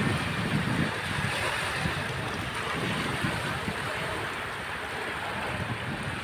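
Small waves washing up over the sand at the water's edge, a steady surf hiss, with gusts of wind buffeting the microphone that are strongest in the first second or so.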